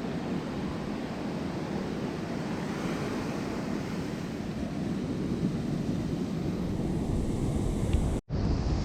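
Ocean surf washing on the beach with wind rumbling on the microphone, a steady noise throughout. The sound cuts out for a split second near the end.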